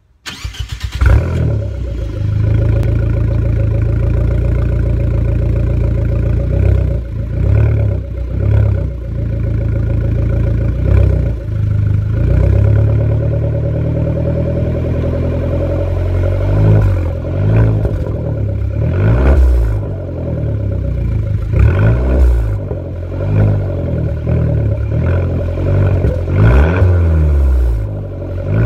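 Abarth 500 EsseEsse's 1.4-litre turbocharged four-cylinder, heard at the tailpipe through a Supersprint stainless tailpipe and intermediate pipe with no silencer after the catalytic converter. It starts just at the beginning, flares, and settles to a steady idle. It is then revved in short blips that rise and fall, coming more often in the second half.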